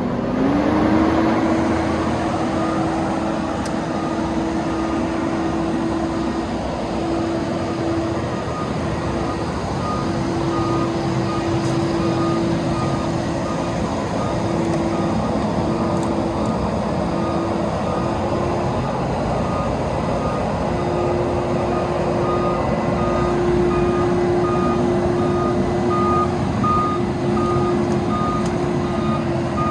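Vögele Super 1800-3i asphalt paver running, its engine holding a steady whine after a short rise in pitch at the start. A warning beeper sounds short, evenly repeating beeps from a few seconds in.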